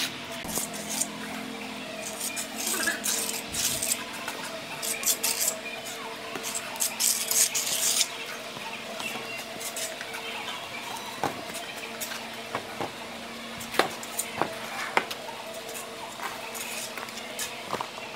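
Mason's steel trowel and metal straightedge scraping and smoothing wet cement mortar along a concrete ledge. A run of rough scrapes comes in the first half, then scattered light metal taps and clicks, over a steady low hum.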